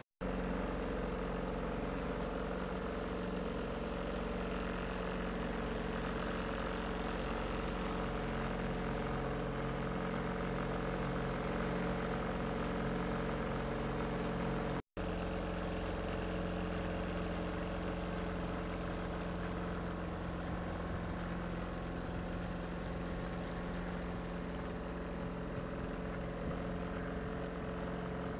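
Small wooden boat's motor running steadily at an even pitch, heard from on board, with a steady hiss over it. The sound drops out for a moment about halfway through.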